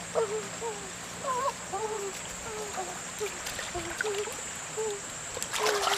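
Short, low hooting calls from an animal, repeated two or three times a second. About five and a half seconds in comes a brief burst of splashing in shallow stream water.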